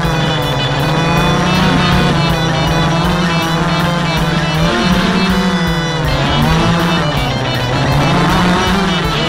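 Quadcopter's brushless motors and 9-inch propellers whining, the pitch rising and falling smoothly as the throttle changes, with music playing over it.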